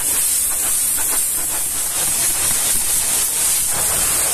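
Pressure-washer jet blasting water against a truck's side panel and mudflap: a steady, loud hiss of spray with water splattering off the bodywork.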